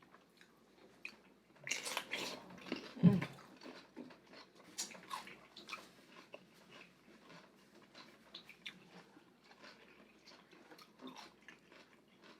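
Close-up eating sounds: chewing and biting with wet, sticky mouth clicks from food coated in boil sauce, a louder patch of sound about two seconds in and a low thud about a second later.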